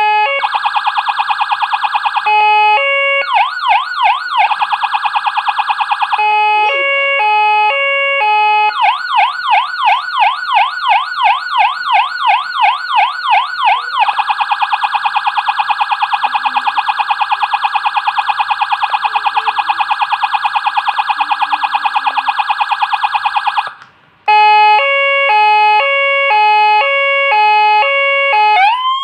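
Landun CJB200HS electronic siren running through its tones while being tested after a repair. It plays a two-tone hi-lo alternation, fast yelping warbles and a long steady tone. The sound cuts out briefly past the middle, returns to hi-lo, and near the end starts a rising wail.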